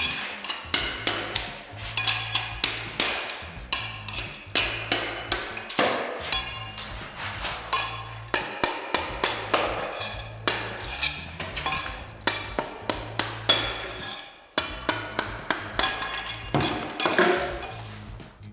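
Rubber mallet striking a steel pry bar over and over, about two to three blows a second, driving it under carpet smooth edge (tack strip) nailed into concrete, with background music under the strikes. The sound dies away near the end.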